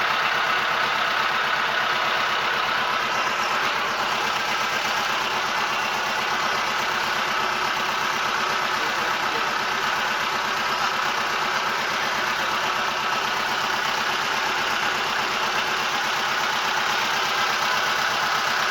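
Boat engine running steadily under way, a constant loud drone with no change in pace.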